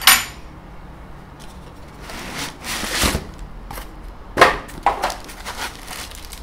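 A length of aluminium extrusion set down on a table with a sharp clack, then rustling and knocking as parts are rummaged out of a cardboard box, with another sharp knock about four and a half seconds in.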